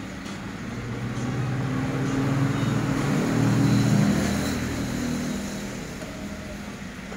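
A road vehicle passing by, its low engine rumble swelling to a peak about four seconds in and then fading away.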